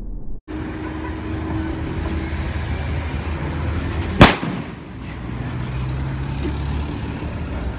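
A single loud firecracker bang about four seconds in, sharp and sudden, over a steady low outdoor rumble.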